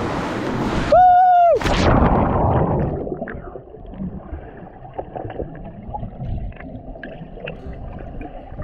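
River water gurgling and sloshing, with scattered small clicks. About a second in, a loud rush of noise cuts off and a short steady-pitched call sounds for about half a second.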